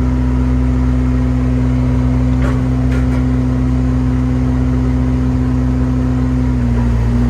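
Excavator's diesel engine running steadily under the hydraulic work of the swing and dump, its pitch dipping slightly near the end as it takes load. A couple of faint clicks sound about two and a half and three seconds in.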